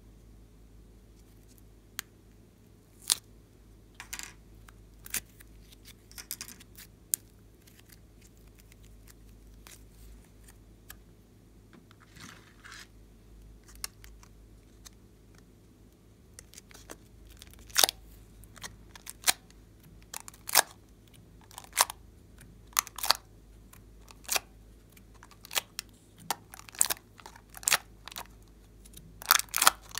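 Thin clear plastic tray being handled and pressed: sharp clicks and crackles of the plastic, a few scattered at first, then coming every half second to a second through the second half.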